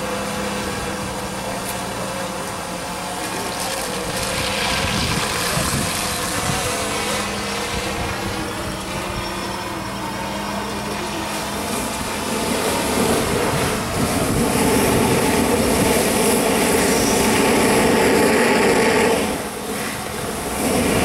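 Fire engine's pump running steadily while a hoseline flows, its engine hum under a rushing noise. The rushing grows louder about twelve seconds in and drops off sharply about two seconds before the end.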